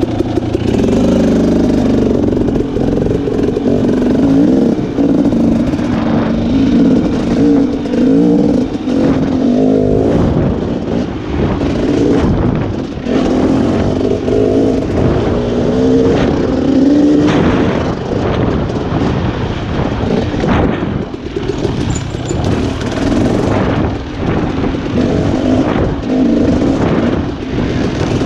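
Husqvarna TX300 two-stroke dirt bike engine heard close up from the rider's helmet, revving up and down over and over as the throttle is worked through tight trail riding. Occasional knocks and thuds cut through it.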